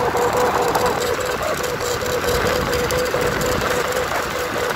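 A snu, a Thai bamboo kite-hummer bow tied to a moving scooter, humming a steady, slightly pulsing drone in the airflow. Heavy wind rush on the microphone and the scooter running lie beneath it.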